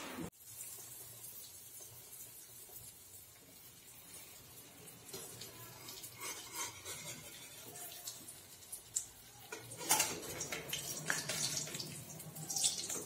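Ariselu, a rice-flour sweet, frying in oil in an iron kadai: a soft steady sizzle, with metal clinks and scrapes of a slotted steel spoon against the pan. The clinking is busiest in the last few seconds.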